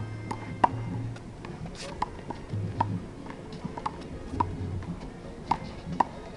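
Small rubber handball being slapped by hand and smacking off a concrete wall and court during a rally. It makes sharp pops at irregular intervals, the loudest just under a second in.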